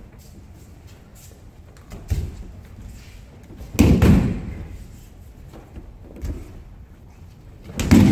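Bodies hitting tatami mats in aikido breakfalls (ukemi): two loud, heavy thuds about four seconds apart, near the middle and at the end, with lighter thumps on the mat in between.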